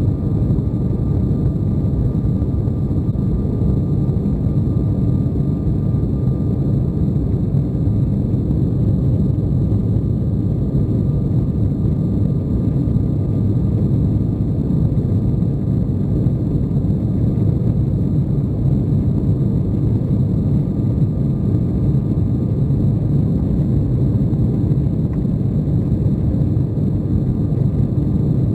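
Steady low rumble inside the cabin of an Embraer 190 climbing out after take-off: its twin GE CF34-10E turbofans at high thrust mixed with airflow noise, with a faint steady whine over it.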